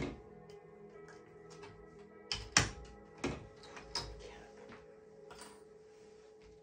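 Small wooden mallet striking a wooden wedge to press cane spline into the groove of a pressed-cane chair seat: a string of irregular sharp taps, the loudest about two and a half seconds in. Background music plays underneath.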